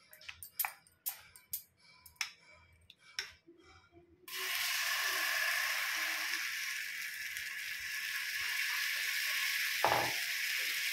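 A few light clicks, then about four seconds in a sudden steady sizzle as radish batter hits a hot oiled iron tawa and is spread with a spoon. A single knock comes near the end.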